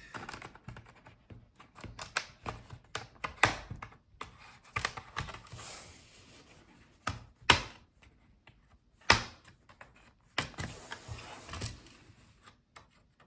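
Plastic clips of a laptop's bottom case snapping loose one after another as a pry tool is worked around the edge, with scraping of the tool along the seam between the clicks. The sharpest snaps come about seven and nine seconds in.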